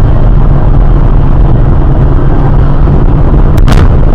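Loud steady road and engine rumble of a moving car as picked up by a dashcam inside the cabin, with a few sharp clicks near the end.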